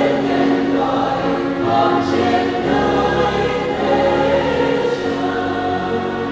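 Mixed choir of men's and women's voices singing a Vietnamese Catholic hymn to the saints in parts, holding sustained chords.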